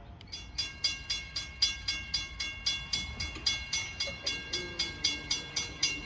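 Railroad grade-crossing warning bell that starts ringing abruptly and keeps up a steady, even clang of about four strikes a second, the warning that a train is approaching.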